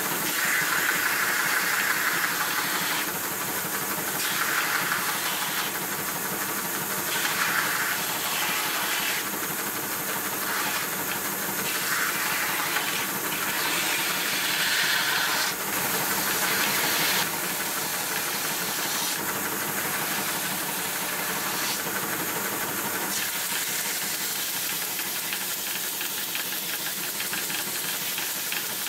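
Bench belt sander running steadily while small pieces of ash are pressed against the moving belt, a rasping hiss that swells each time the wood meets the belt, several times over, then settles to a steadier sound near the end.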